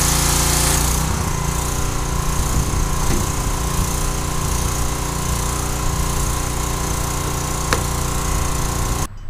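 Karcher 2000 psi pressure washer running steadily, its 4 hp gas engine driving the pump while the spray jet hisses against the deck boards. The sound cuts off suddenly near the end.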